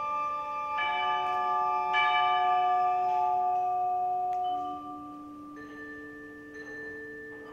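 Chinese orchestra playing a quiet passage of bell-like struck notes, two of them about one and two seconds in, which ring on as long held tones. The sound grows softer near the end as a few quieter held notes continue.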